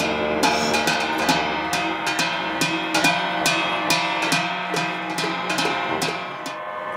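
Tibetan monastic ritual music: cymbals and drum struck in a steady beat about three times a second over held wind-instrument tones, the strokes stopping shortly before the end.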